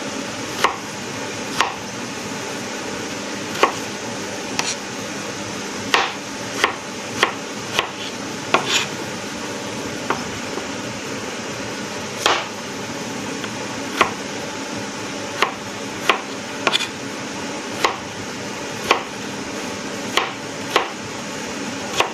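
Kitchen knife chopping raw potato on a plastic cutting board: sharp single taps at an uneven pace, about one a second, over a steady hiss.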